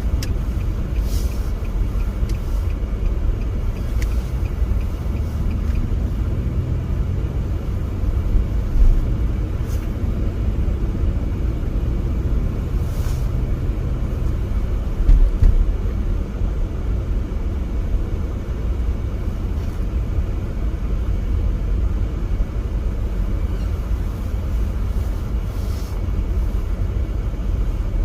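Steady low road and engine rumble heard from inside a car's cabin while driving, with two brief louder bumps about a third and halfway through.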